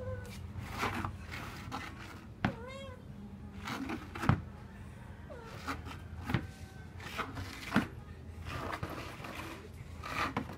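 Domestic cat meowing several times, with a few sharp knocks, the loudest about four seconds in, as a hollow plastic stool is bumped against the tile floor.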